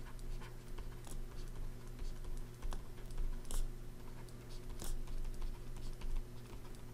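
Stylus tapping and scraping on a pen tablet as words are handwritten: scattered light, irregular clicks much like typing, over a faint steady low hum.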